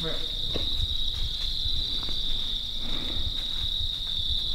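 A steady high insect trill, with a hunter's short mouthed "meh" bleats in the first half-second, made to stop a buck for a shot.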